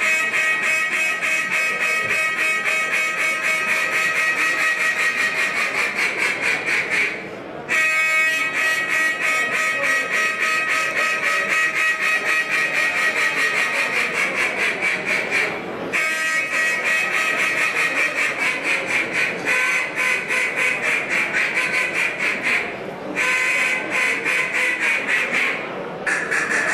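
Competition duck calling on a hand-blown duck call: long strings of rapid, loud quacking notes, broken by short pauses three or four times.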